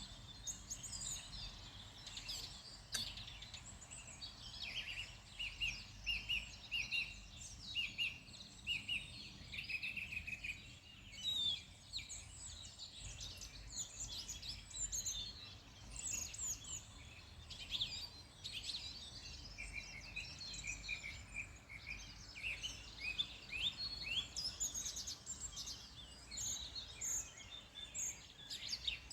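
Several wild songbirds singing and chirping at once, with short repeated trills and quick high notes overlapping, over a steady low rumble.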